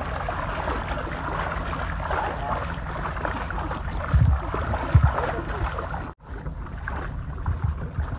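Legs wading through knee-deep water, a steady sloshing and splashing, with two heavier low thumps about four and five seconds in. The sound cuts out briefly about six seconds in.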